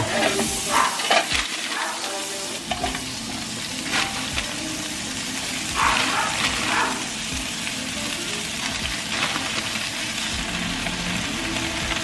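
Steady sizzling and bubbling from the stovetop: fresh spinach wilting in a hot frying pan beside a pot of potatoes at a rolling boil. There are a few short crinkles and clatters about four to seven seconds in as the spinach is handled.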